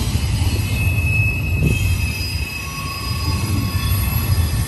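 Double-stack intermodal container cars of a CSX freight train rolling past: a steady low rolling noise of steel wheels on rail, with thin, high wheel-squeal tones that come and go at several pitches.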